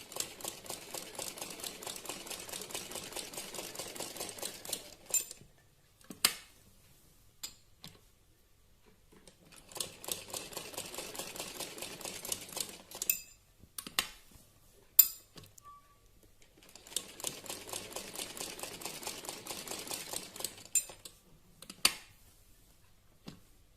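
Sewing machine stitching in three short runs of rapid, even needle strokes, with sharp clicks in the pauses between runs as the presser foot is lifted and the fabric turned.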